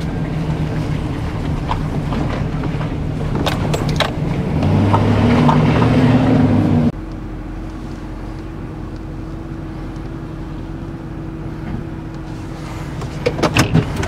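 Chevrolet Silverado 3500 pickup engine running as the truck is driven, louder and rising in pitch for a couple of seconds. Then it drops abruptly to a steady idle. A few sharp knocks come in the first seconds.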